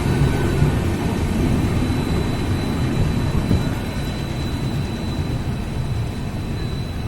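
Passenger train running through the station: a steady low rumble with a thin high whine, slowly growing quieter.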